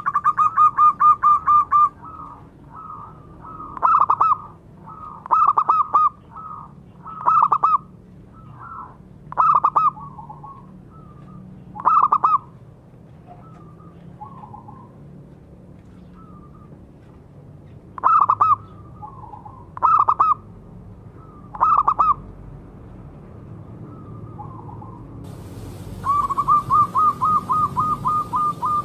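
Zebra dove (perkutut) cooing. A fast run of soft, evenly spaced notes opens, then comes a string of short cooing phrases about every two seconds with a pause in the middle, and another quick rolling run of notes near the end.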